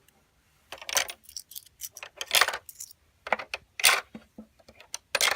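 Coins clinking and dropping through a LEGO-brick coin mechanism: a run of sharp, irregular clicks and metallic rattles, the loudest about a second in, near two and a half seconds, near four seconds and just before the end.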